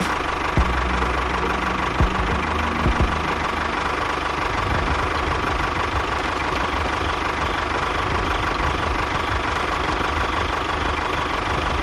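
A small engine running steadily at a constant speed, with a few sharp knocks in the first three seconds.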